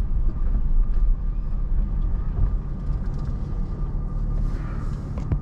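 Low rumble of a car driving slowly, engine and tyre noise, with a faint steady high whine over it; the rumble eases off slightly near the end.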